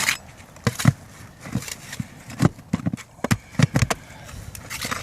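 Irregular knocks and scuffs on an asphalt shingle roof, about a dozen sharp ones, with a tight cluster of louder knocks a little past the middle.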